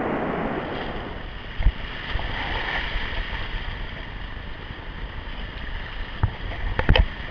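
Whitewater rapids of the Kern River rushing steadily. A few low thumps from the camera being handled, the loudest near the end.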